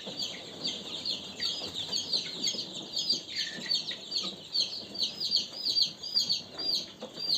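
A brood of young chicks peeping together: many short, high cheeps that slide downward in pitch, overlapping several times a second.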